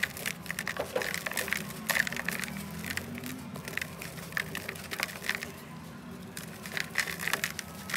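Dry red dirt chunks crushed by hand, crumbs falling into a metal bowl: gritty crunching and crackling that thins out about halfway, then picks up again near the end.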